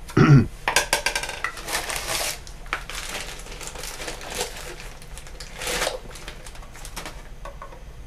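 White PVC pipe fittings knocking, clicking and rattling against each other as they are handled and pushed together, a run of light clatters that is busiest in the first couple of seconds.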